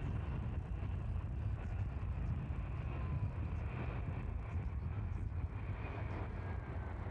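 Four jet engines of a Boeing 707 freighter running as it rolls out on the runway after landing without its nose gear: a steady rushing noise, heaviest in the low end, with a faint falling whine now and then.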